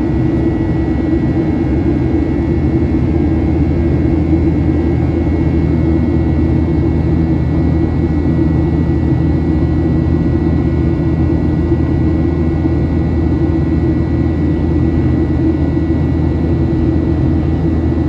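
Steady cabin noise of a Boeing 737-900ER climbing after takeoff, heard from a seat beside the engine: the deep, even drone of its CFM56-7B turbofans with a thin, steady whine above it.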